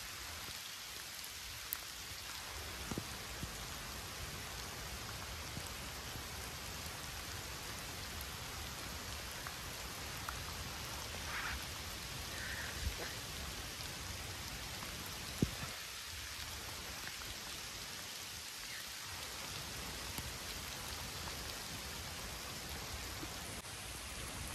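Steady rain falling, an even hiss with a few scattered faint taps of drops, the clearest about fifteen seconds in.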